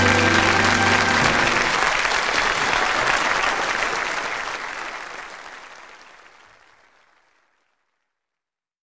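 Audience applauding as the band's final chord rings out and stops in the first second or so; the applause then fades away over a few seconds, gone about seven seconds in.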